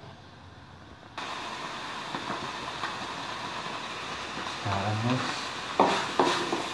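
Chicken frying in a wok over a gas burner: a steady sizzling hiss comes in suddenly about a second in, then a metal spatula knocks against the wok twice near the end as the food is stirred.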